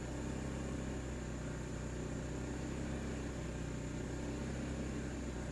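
Steady low hum of a running backup generator, even and unchanging.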